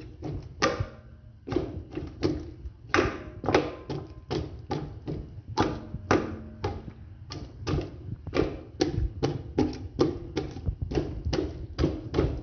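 A fork stabbing repeatedly into a raw whole chicken in an aluminium pot: a quick, uneven series of taps and dull thuds, about two to three a second, some with a short metallic ring. The chicken is being pricked so the seasonings soak in.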